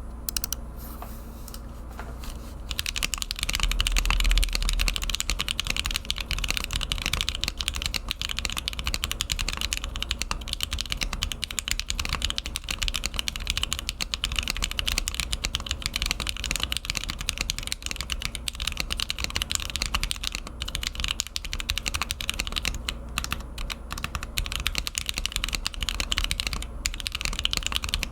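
TKC Portico mechanical keyboard with Hippo linear switches and IFK black-on-white keycaps being typed on: a rapid, continuous clatter of keystrokes that starts about three seconds in.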